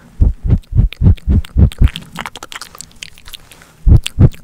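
Soft, deep thumps of a fluffy makeup brush patting and brushing against the microphone, about three a second for a couple of seconds, then two more strong pats near the end.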